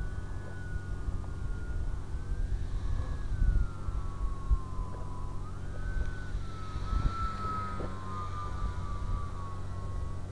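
Whine of an RC Cessna's brushless electric motor and propeller in flight, rising and falling in pitch as the throttle and distance change, with wind buffeting the microphone in low gusts.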